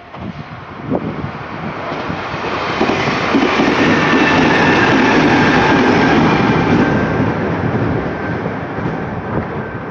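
A Kintetsu Minami-Osaka Line train passing over a level crossing. Its rail noise builds over the first few seconds, is loudest around the middle, then slowly fades as it goes away.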